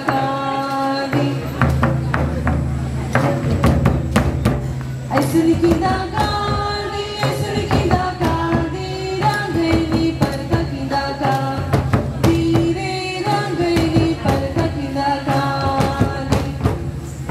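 Adivasi folk song sung by a group of voices in repeated phrases over a driving beat of hand-played two-headed barrel drums.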